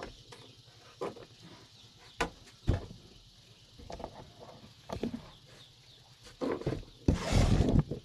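Scattered light clicks and knocks of hands handling wiring and fittings, with a louder scraping rustle lasting about a second near the end.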